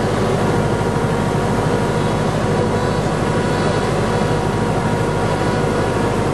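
Robin DR400 light aircraft's piston engine and propeller heard from inside the cabin, running steadily on final approach.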